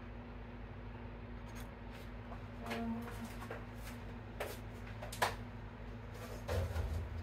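Quiet kitchen room tone with a steady low hum, broken by a few scattered light clicks and knocks from handling in the kitchen, the sharpest about five seconds in.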